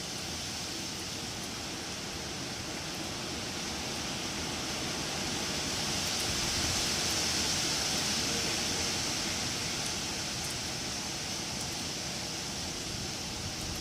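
Wind rushing through tree foliage, a steady hiss that swells in a gust about halfway through and then eases off.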